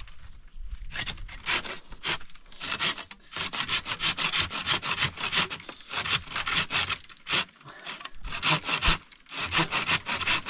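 Hand saw cutting through thin wooden branches: quick, even back-and-forth strokes of the blade in the wood, with a couple of short breaks in the second half.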